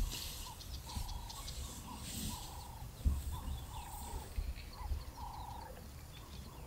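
A bird repeating a call of short, low notes, a longer note about every second and a half with a shorter one between, over low rumbling thumps.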